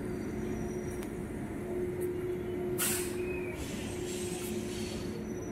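Steady low rumble and hum of a passenger train standing at the platform, with a short burst of hiss about three seconds in.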